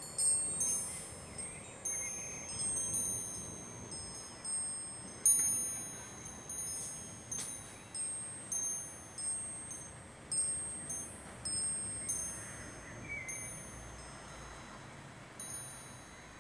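Metal wind chime jangling in gusty wind: irregular clusters of high, clear ringing tones, each struck suddenly and dying away, growing sparser near the end, over a faint steady hiss.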